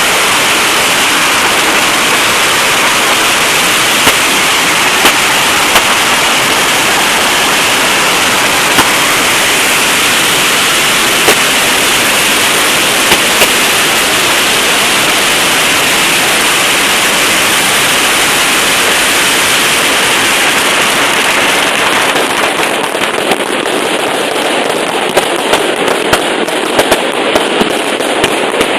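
Fireworks and firecrackers going off in a loud, dense, continuous crackle, with occasional louder bangs standing out. After about 22 seconds the crackle thins and more separate bangs come through.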